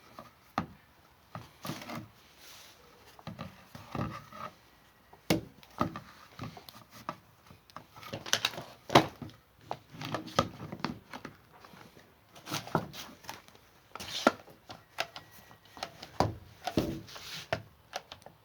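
Irregular clicks, taps and knocks with light rustling: objects being handled and set down on a hard surface.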